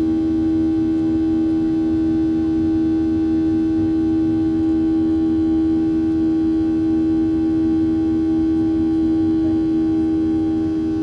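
Boeing 737 jet engines heard from inside the cabin during the climb after takeoff: a steady drone with one strong low hum and several fainter steady tones above it over a low rumble.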